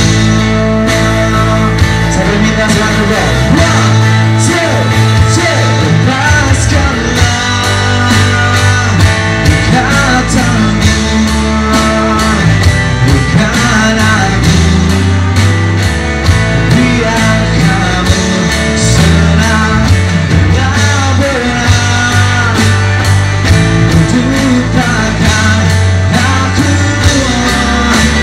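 Live band playing a pop-rock song: a male singer over electric guitar and a steady drum beat, with saxophone.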